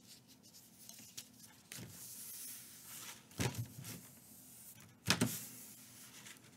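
Hands rubbing and pressing a glued paper sheet flat against a manila file folder: three short brushing swishes, about a second and a half apart, the last the loudest.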